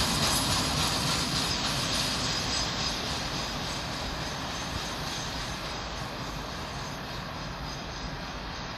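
Freight train running away into the distance, a steady rolling noise of wheels on rails that slowly fades.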